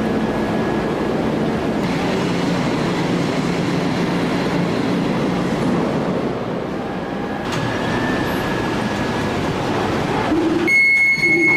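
Heavy forge-shop machinery running with a loud, steady mechanical rumble and hum, no separate hammer blows standing out. A pitched tone with many overtones sets in near the end.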